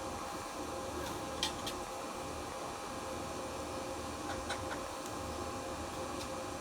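Steady indoor background hum, like a fan or appliance, with a few faint ticks or scratches.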